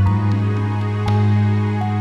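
Background music: a gentle, new-age style soundtrack with sustained bass notes and soft melodic notes over a light beat.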